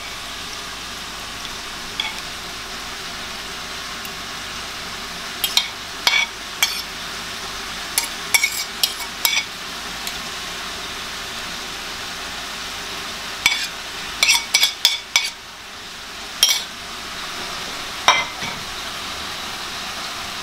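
A metal fork clinking and scraping against porcelain plates in short clusters of clicks as steamed fish pieces are pushed off one plate onto another, over a steady background hiss.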